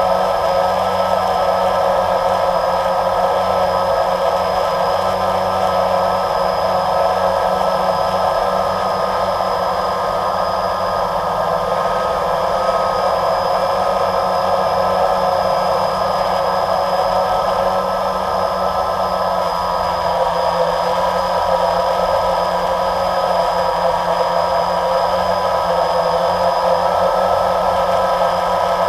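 Steady whirring hum of the camera-carrying model aircraft's motor and propellers in flight, several steady tones over a noisy rush, with a slight wavering in pitch just past the middle.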